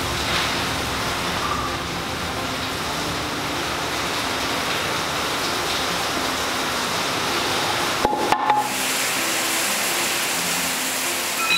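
Background music over a steady hiss-like wash, with a brief break and a few clicks about eight seconds in.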